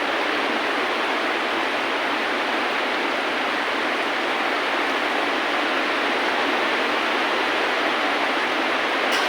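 Steady rain, an even wash of noise with no low rumble, with one light tap near the end.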